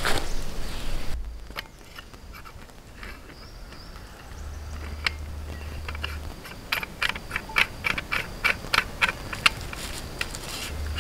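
A run of short, sharp knocks and clicks, about three a second, in the second half, over a low rumble.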